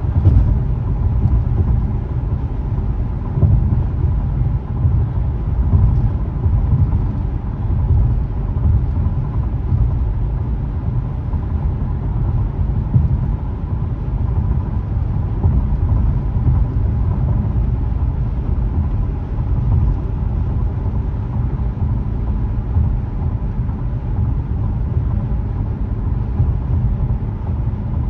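Car cabin road noise at highway cruising speed: a steady low rumble of tyres and engine, unchanging throughout.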